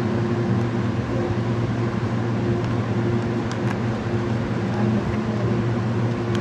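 Steady low mechanical hum, with a few faint clicks of plastic toy-pistol parts being handled about three and a half seconds in.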